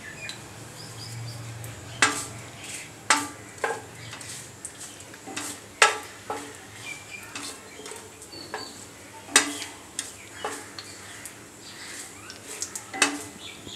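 A wooden spatula stirs mustard seeds and dried buttermilk chillies in hot oil in a stainless steel pan, with scattered sharp clicks and knocks a second or more apart.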